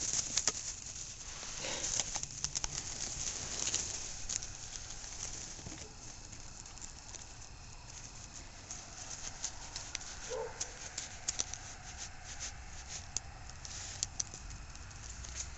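Mini pig rooting and nosing about in garden mulch and grass: scattered rustling, crackling and small clicks as it digs and steps around.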